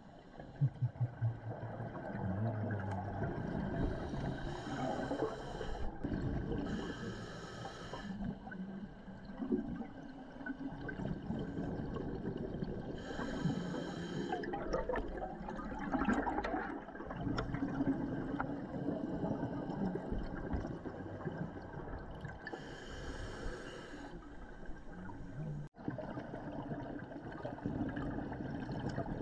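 Scuba diver breathing underwater through a regulator: a few hissing inhalations, each a second or two long, between long stretches of exhaled bubbles rising and rumbling.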